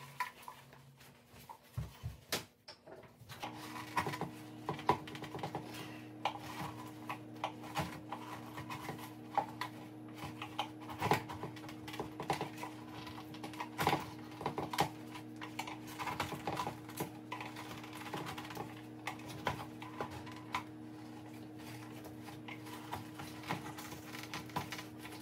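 Irregular clicks, taps and scrapes of a hand tool picking softened old glue out of a headlight housing after the lens has been removed. A steady low hum comes in about three and a half seconds in and runs underneath.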